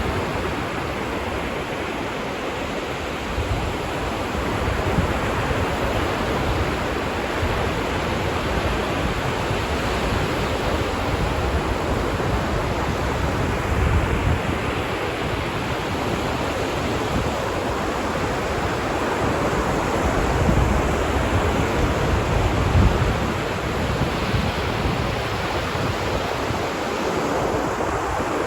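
Ocean surf washing steadily onto a beach, a continuous rush of breaking waves with a few heavier swells.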